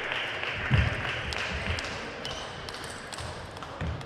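A plastic table tennis ball clicking a few times as it is bounced, over a steady hall noise. A dull thump about three-quarters of a second in is the loudest sound, with another near the end.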